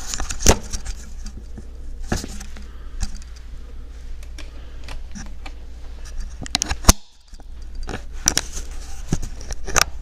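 Irregular metallic clicks and jingles of a locksmith's keys and tools being handled, mixed with close handling knocks, the loudest about half a second in and again near seven seconds.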